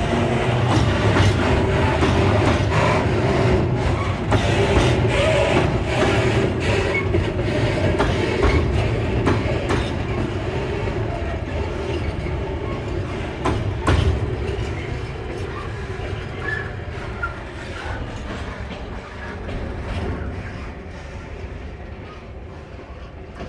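Freight train wagons rolling past at low speed, their wheels knocking irregularly over the rail joints. One heavier knock comes about halfway through. As the last wagon passes and the train moves off, the rumble steadily fades.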